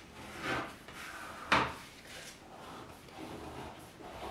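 Pencil scraping along a folded sheet of paper on a wooden table, with paper rustling and one short, sharp knock about one and a half seconds in.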